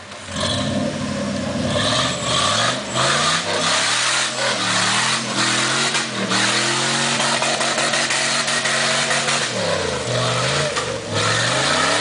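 Rock-crawler buggy's engine revving up and down under load as it climbs a stepped rock ledge, its pitch rising and falling several times, with a sharp drop and rise near the end.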